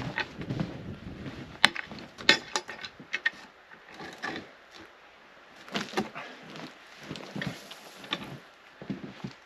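A log being rolled and handled, giving several sharp wooden knocks and scrapes. The loudest knocks come about one and a half to three seconds in.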